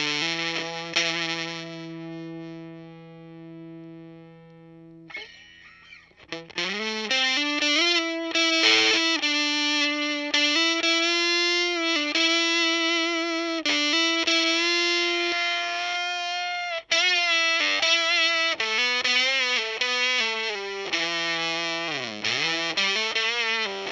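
Electric guitar played through an Octavia-style fuzz pedal with a subtle octave-up effect (a DIY Madbean Retrograde clone): fuzzy distorted notes. A held note rings and fades over the first few seconds, then sustained lead notes waver with vibrato, and one note bends down and back up near the end.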